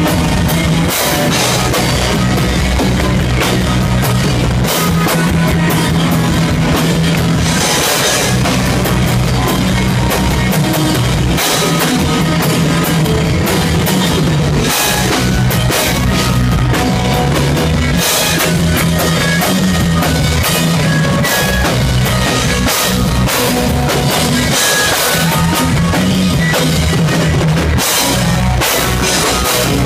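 Live rock band playing loud: electric guitars, bass and a drum kit with frequent cymbal crashes.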